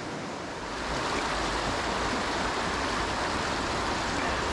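Shallow, rocky mountain stream rushing over stones in a riffle: a steady hiss of moving water that grows louder about a second in.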